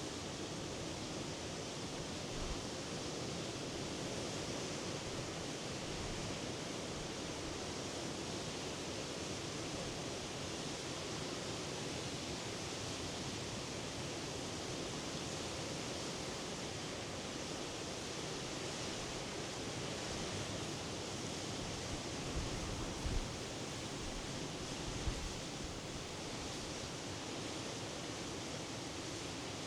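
Sea surf making a steady, unbroken rushing sound, with a few brief low thumps a little over two thirds of the way through.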